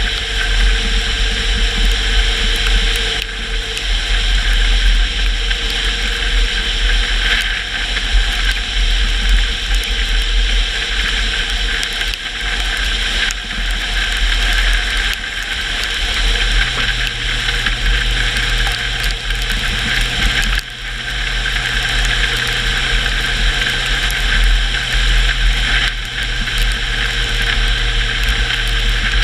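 Car driving on a wet road: a steady engine drone under tyre and road hiss, with the engine note stepping up in pitch about halfway through.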